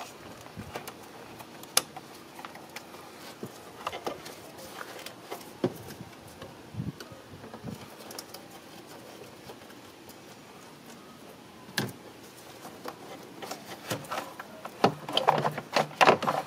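Sporadic sharp clicks and knocks of hand work on an engine, as a connector is unplugged and parts are taken off the top of the engine. A denser run of knocking and rubbing comes near the end.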